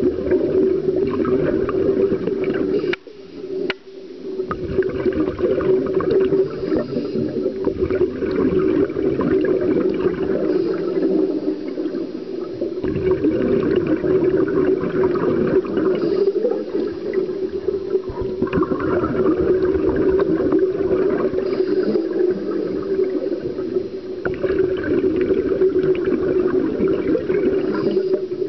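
Scuba diving heard from inside an underwater camera housing: a steady muffled hum with bubbling gurgles from scuba exhalation that come and go every few seconds. The sound briefly drops away about three seconds in.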